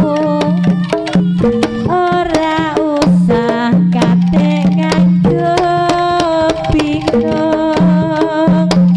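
Live jaranan gamelan music: kendang hand-drum strokes keep a busy rhythm under a wavering lead melody and a sustained low tone.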